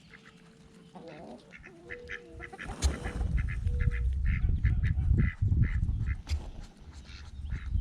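Ducks calling, a run of short repeated quacks about three a second, over a low rumbling noise that starts about three seconds in.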